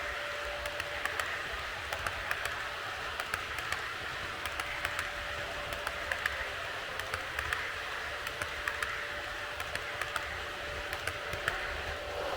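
HO-gauge model freight train rolling along the track: a steady rolling hiss with a faint steady hum, and wheels clicking over rail joints in irregular clusters.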